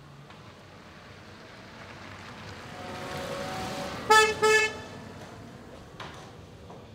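A Smart fortwo city car drives past, its engine and tyre noise growing louder, then two short toots of a car horn about four seconds in.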